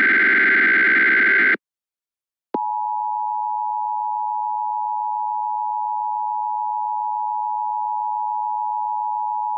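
Emergency Alert System header: the last burst of the SAME digital data signal, a harsh buzzing warble, ends about a second and a half in. After a second's pause, the EAS attention tone begins, a steady loud electronic tone heralding a flood warning.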